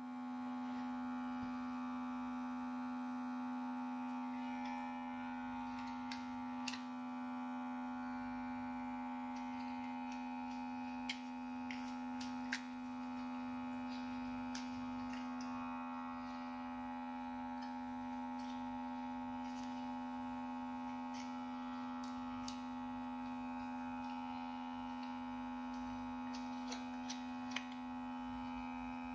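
Heat gun running with a steady electric hum, with a few faint sharp clicks here and there.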